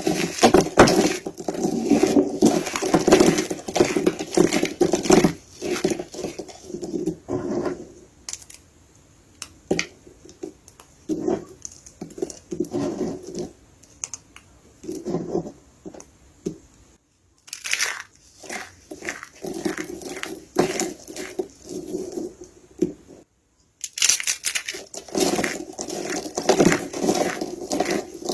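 Soap being crushed: uneven bursts of crisp crunching and crackling, with short pauses between them.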